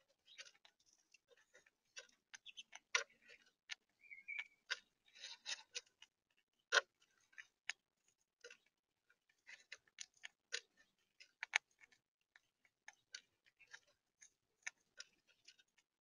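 Gray squirrel gnawing and cracking food right at the microphone: irregular sharp clicks and crunches, thickest about five seconds in.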